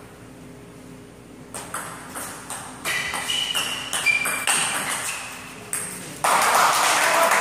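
Table tennis rally: the celluloid ball clicks off the paddles and table about twice a second, starting about a second and a half in, with a few short high squeaks of shoes on the floor. About six seconds in, applause breaks out as the point ends.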